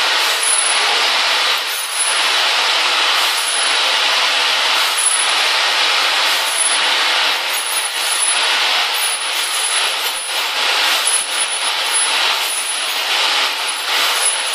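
Many small metal lighter valve parts rattling and sliding as they are shaken over a perforated loading plate: a dense, continuous rattle that swells and eases every second or so.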